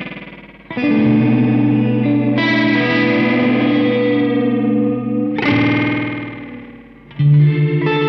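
Electric guitar (Yamaha Revstar RSS02T) playing chords through a Caline Parrot digital delay pedal, with a slightly gritty amp tone. A chord is struck about a second in and rings. Its repeats then swirl and bend in pitch as they fade, until a fresh chord is struck near the end.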